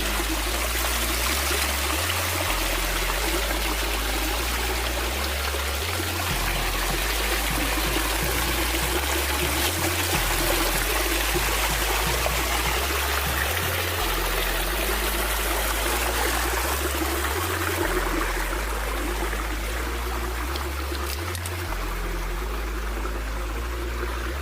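Steady rushing and trickling of running water, with a deep bass line of background music changing note every second or two beneath it.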